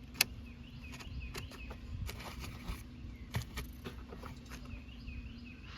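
Scattered light clicks and taps as the oil drain plug of a Predator 5000 generator's engine is unscrewed and pulled out by hand.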